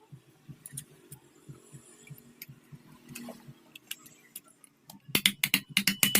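Hand work on a Kirloskar Tullu pump motor being reassembled: faint, evenly spaced low knocks with a few scattered clicks, then about five seconds in a fast run of loud, sharp metallic clicks and taps.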